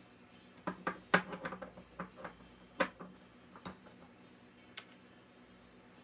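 A quick, irregular run of light clicks and knocks as small hard objects are handled and set down, the loudest about a second in, with a few scattered taps after.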